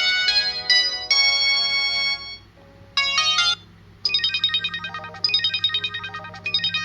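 Samsung GT-E2120 mobile phone ringtones. One polyphonic melody ends about two seconds in, and a short phrase of notes follows after a brief pause. About four seconds in, a new tune of quick repeated high notes begins.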